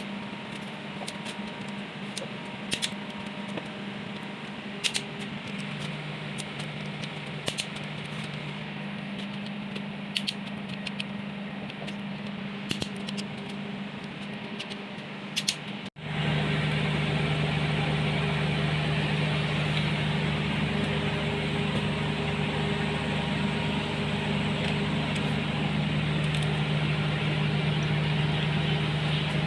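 A machine hums steadily, with sharp clicks every couple of seconds. After an abrupt cut about halfway through, a louder, steady running sound takes over, like an engine at a constant speed.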